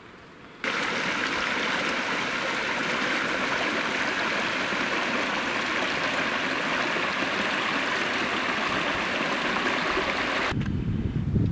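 Stream of water running steadily. It cuts in about half a second in and cuts off abruptly near the end, leaving a low rumble.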